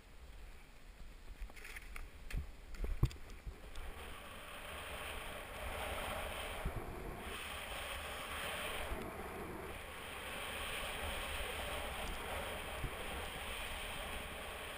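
Snowboard sliding through soft snow: a steady hiss that builds from about four seconds in and holds, with wind rumbling on the microphone. A few knocks come before it, the loudest about three seconds in.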